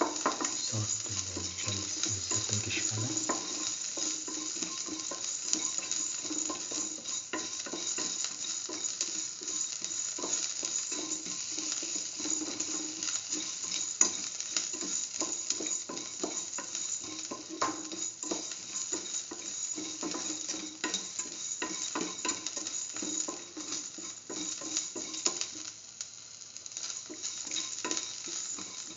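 Shallots, garlic and mustard seeds sizzling in hot oil in a stainless steel pan while being stirred, with frequent sharp clicks and scrapes. The sizzle eases slightly near the end.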